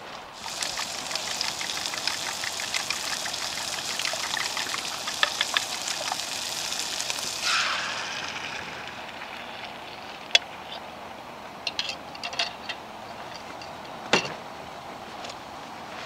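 Leftover sausage, peppers, onion and mushrooms sizzling and crackling in a hot cast-iron skillet. About seven and a half seconds in, beaten eggs are poured in and the sizzle drops to a soft hiss, followed by a few scattered clicks and a knock.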